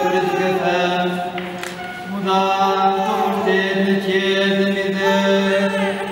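Orthodox liturgical chant: a voice chanting a melodic line over a steady held drone note, with a short break about two seconds in.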